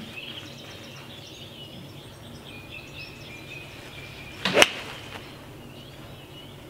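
TaylorMade M2 7-iron swung and striking a golf ball: a brief swish, then a single sharp click of the clubface on the ball about two-thirds of the way in.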